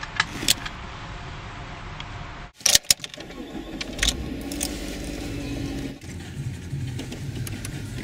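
Sharp clicks of a car seatbelt latching, then keys rattling in the ignition, and the car's engine starting about four seconds in and running steadily.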